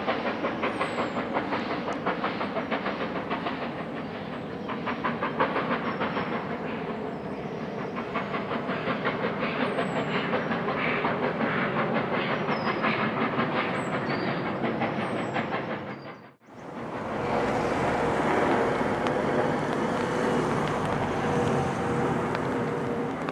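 Steam-hauled train passing, with a dense rhythmic clatter of wheels on the rails and faint birdsong above it. After a sudden cut about 16 seconds in, a steady hiss takes over.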